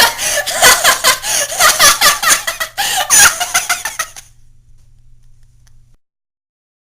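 A young person's voice in a rapid run of short, loud, staged bursts, stopping about four seconds in. A faint low hum carries on until the sound cuts out abruptly near six seconds.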